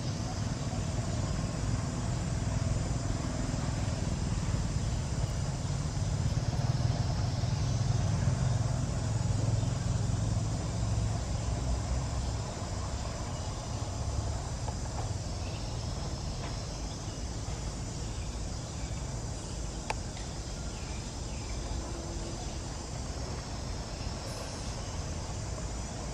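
Outdoor ambience: a steady high buzz of insects over a low rumble that swells from about six seconds in and eases after about twelve.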